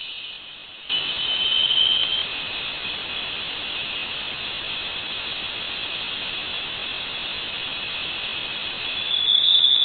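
Interstellar plasma wave data from Voyager 1 converted to audio: a high band of hiss with a whistling tone, swelling about a second in and again near the end. The sound is thought to come from interstellar plasma struck by a shock wave from the Sun.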